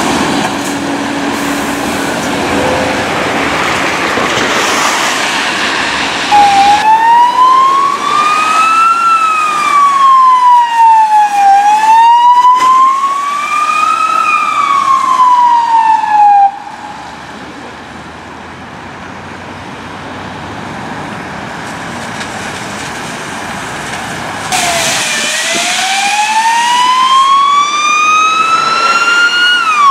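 Emergency vehicles passing on a wet road, engine and tyre hiss. About six seconds in an electronic wail siren starts, sweeping slowly up and down several times, and cuts off suddenly about sixteen seconds in. Tyre hiss of approaching traffic builds again, and near the end a second wail siren starts, rising and then falling.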